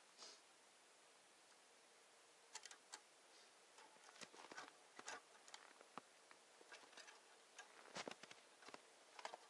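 Faint, scattered clicks and light knocks of a trap being handled in a small wooden trap box, with the loudest cluster about eight seconds in.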